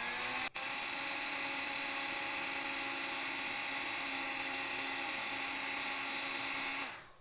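Heat gun with a reflector nozzle running, a steady hum with a rush of blown air as it heats a Solder Seal splice to remelt the low-temperature solder. Its pitch rises briefly as it comes up to speed, then holds steady until it cuts off shortly before the end.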